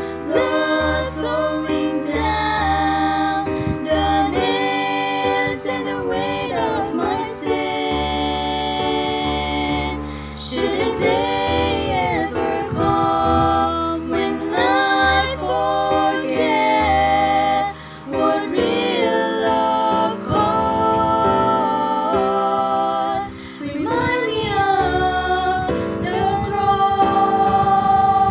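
Three women's voices singing a Christian worship song together in harmony, over low sustained notes.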